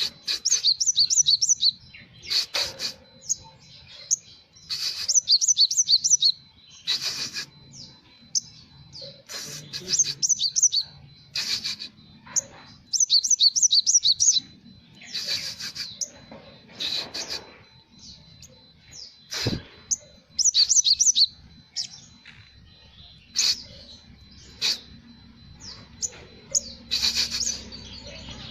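Olive-backed sunbird singing: short bursts of rapid, high trilling notes repeated every few seconds, with Java sparrow phrases mixed into its song. A single sharp click about two-thirds of the way through.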